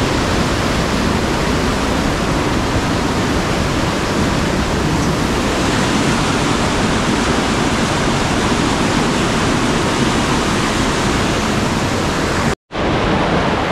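Fast water rushing through a narrow rocky gorge: a loud, steady roar that cuts out for a moment near the end.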